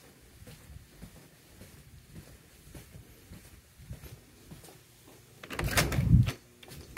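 Faint, evenly spaced footsteps on a hard floor, then a loud bump-and-scrape lasting under a second near the end.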